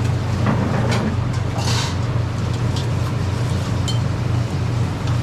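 Steady low hum of restaurant background noise, with a few light clicks and clinks and a brief hiss about two seconds in.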